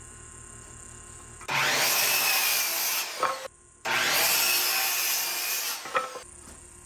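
Power saw cutting through wood twice, each cut starting abruptly and running steadily for about two seconds.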